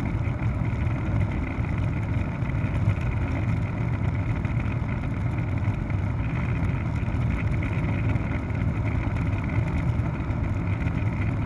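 Helicopter engine and rotor noise: a steady, even low drone with no changes.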